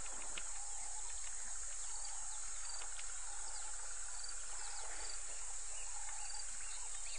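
Steady high-pitched chorus of insects with short bird chirps scattered over it: natural bush ambience.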